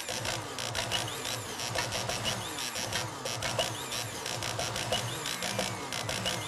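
Electric motors of household appliances and power tools, MIDI-controlled to play a tune: a fast, even clicking beat over motor whines that fall in pitch again and again, with short pitched notes on top.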